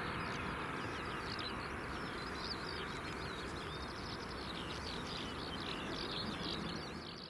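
Small birds chirping and singing in many quick, high notes over a steady, distant rumble from the Boeing 737-800's engines as it rolls out. The sound fades out at the very end.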